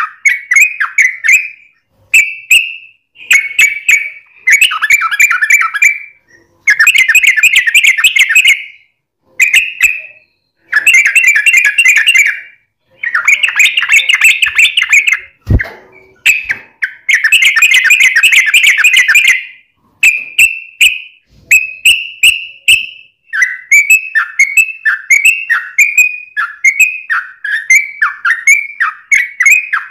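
Yellow-vented bulbul (trucuk) singing a long, rapid chattering song in bursts of one to two seconds with short pauses between them. Near the end it changes to a run of separate downward-slurred notes, about two a second. There is a single sharp click about halfway through.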